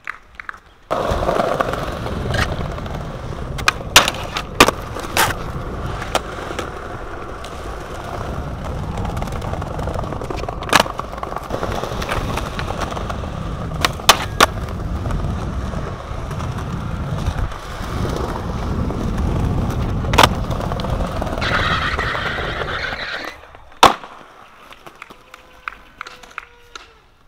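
Skateboard wheels rolling loudly over pavement, with a string of sharp pops and clacks of the board as tricks are tried and landed. The rolling cuts off shortly before the end, followed by one last sharp board clack.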